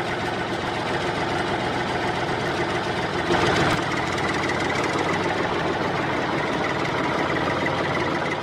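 Tractor engine sound running at a steady, knocking idle, dubbed over a die-cast toy tractor that makes no engine noise itself. It swells briefly about three and a half seconds in.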